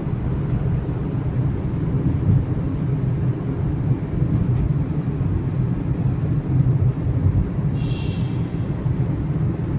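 Steady low rumble of a road vehicle on the move: engine and road noise. A short, high beep comes about eight seconds in.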